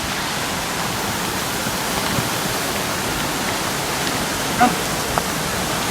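Small mountain waterfall and stream rushing over rocks: a steady, even sound of falling water.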